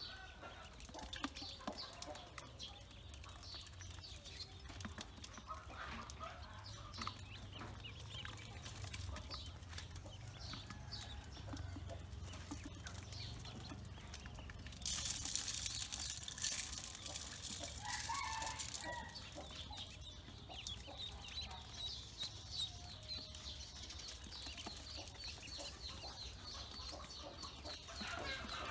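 A group of Pekin ducklings peeping and chirping continuously while they feed, with many quick short calls overlapping. About halfway through comes a stretch of louder hissing noise lasting about four seconds.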